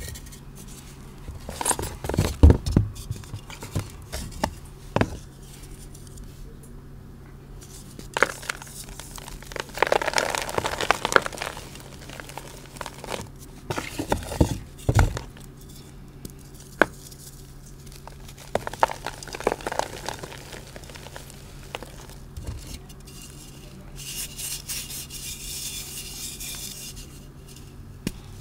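Hands crushing and squeezing blocks of reformed gym chalk coated in thick glitter paste, giving irregular bursts of crunching and crackling with sharp snaps as the blocks give way. Near the end comes a longer stretch of soft, grainy crumbling.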